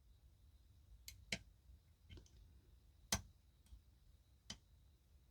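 Faint, sparse clicks of a lock pick and tension wrench working the pins of a pin-tumbler challenge lock, about six in all, the sharpest about three seconds in.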